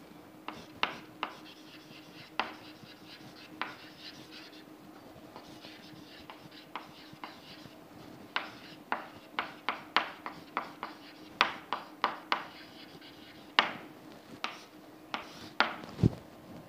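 Chalk writing on a chalkboard: a run of sharp taps and short scratching strokes as words are written out, coming thicker in the second half.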